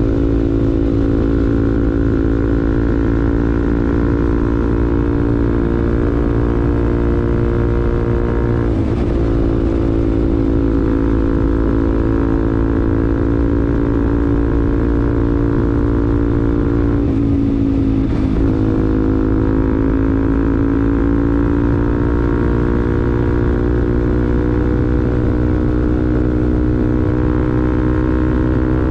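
Bajaj Pulsar NS200's single-cylinder engine through an R9 aftermarket racing exhaust, running under way at speed. The note climbs slowly, and twice, about 9 and 17 seconds in, it breaks and drops briefly, as at a gear change, before climbing again.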